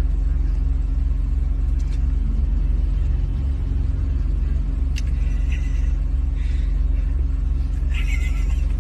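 Steady low rumble of a running car, heard from inside the cabin, with a few faint short higher sounds in the second half.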